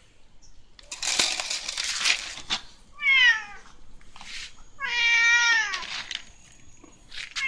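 Domestic cat meowing twice, a short falling meow about three seconds in and a longer one about two seconds later. Before them comes about a second and a half of hiss-like noise.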